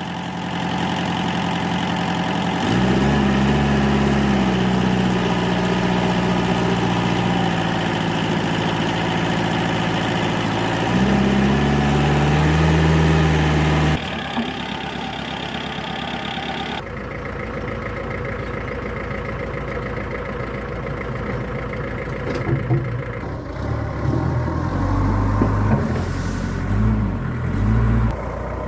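Vintage truck engine running, mostly at idle, stepping up in pitch a couple of times as it is revved. The sound changes abruptly a few times, and near the end the running turns uneven with low thuds.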